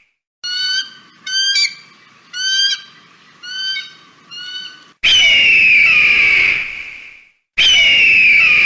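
Eagle calls: a run of five short, clear, pitched calls, then two long, loud, harsh screams that fall slightly in pitch, each cut off abruptly.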